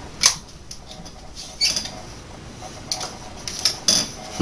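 Clicks and scrapes of a 20-gauge Remington 870 Express shotgun's parts being worked into place by hand during reassembly: a sharp click shortly after the start, a short scrape a little before halfway, and a few lighter clicks near the end.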